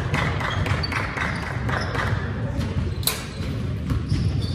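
Basketball bouncing on a gym floor amid scattered thuds over a steady low rumble, with one sharp crack about three seconds in.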